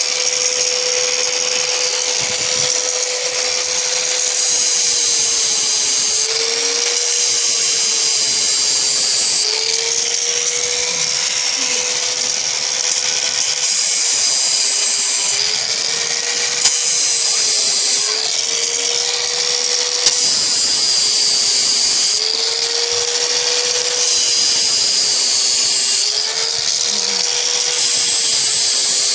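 High-speed power tool cutting into steel handcuffs. Its motor runs at a steady whine and sags in pitch several times as it is pressed into the metal, with a hissing grind that comes and goes with each pass.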